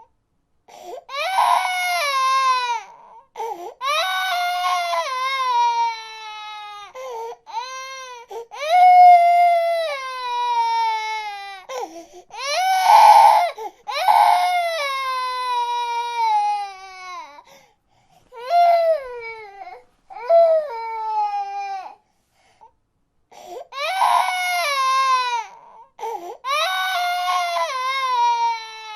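Baby crying in a string of long wails, each one sliding down in pitch, with short catches of breath between them and a couple of brief pauses in the second half.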